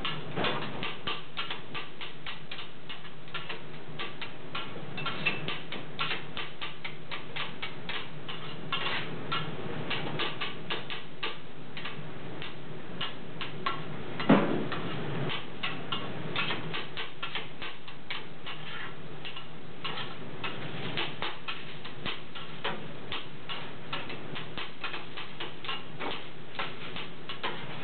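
Two metal spatulas chopping steak meat on a steel flat-top griddle: a fast, uneven clatter of blade edges striking the griddle, several strikes a second, over a steady low hum. One louder clang about halfway through.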